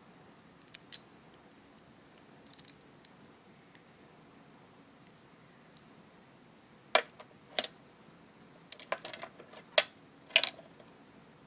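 Small hard-plastic toy pieces of a miniature kitchen set clicking and tapping against each other as they are handled and set down. There are a few faint clicks in the first three seconds, then a run of louder, sharp clicks and knocks from about seven seconds in.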